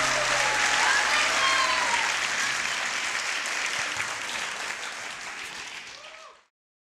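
Audience applauding with a few cheers. The last held music note dies away in the first second, and the applause fades steadily before cutting off near the end.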